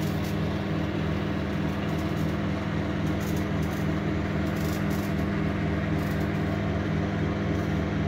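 IFB 20BC4 convection microwave oven running in combined microwave and convection mode with a cake baking inside: a steady, even hum.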